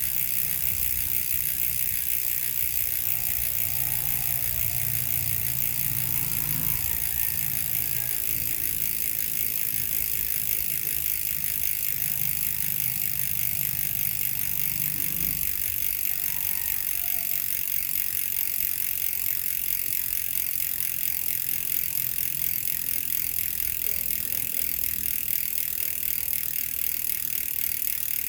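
SRAM X9 three-pawl rear bicycle hub freewheeling, its pawls ratcheting against the freehub in a steady, rapid run of clicks that blurs into a high buzz.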